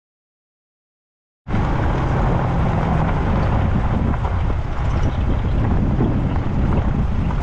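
Silence for about the first second and a half, then wind rushing over an outside-mounted camera microphone, with a four-wheel drive rolling along a dirt road underneath.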